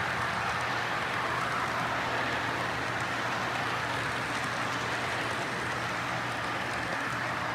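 Model freight cars rolling past on metal track: a steady rolling noise of wheels on rail with a few faint clicks.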